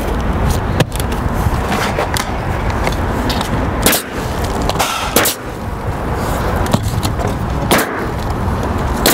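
Pneumatic roofing nailer driving nails through an asphalt shingle: about six sharp shots, spaced irregularly, over steady background noise.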